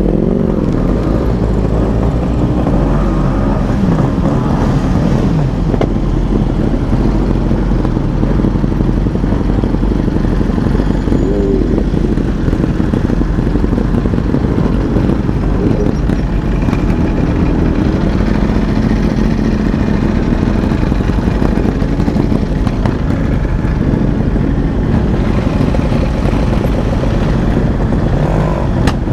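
Motorcycle engines running steadily: a Yamaha RX100's two-stroke single-cylinder engine at low revs, with a group of sport bikes idling around it. The pitch rises and falls briefly a few times as throttles are blipped.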